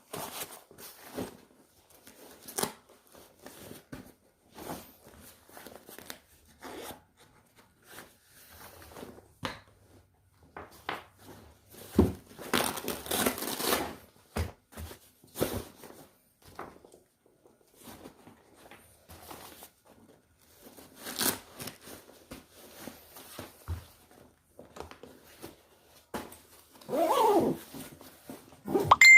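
Gear being packed into a backpack: scattered clicks, knocks and fabric rustling, with a longer rasp about twelve seconds in and a louder burst near the end.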